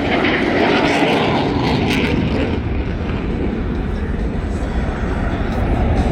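F/A-18 Super Hornet jet engine noise, loud and continuous, as the aircraft fly past. A hiss in the upper range fades after about two and a half seconds, leaving a low rumble.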